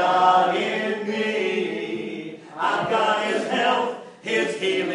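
Group of voices singing a repeated gospel chorus together in long sung phrases, with short breaks about halfway through and again near the end.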